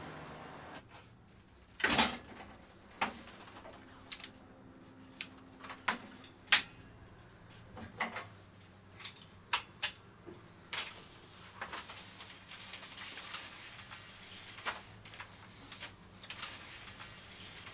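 Scattered metal clicks, knocks and clunks as a 35 mm film reel is mounted on a projector's reel arm and the film is threaded through the projector. The loudest knocks come about two seconds in and about six and a half seconds in.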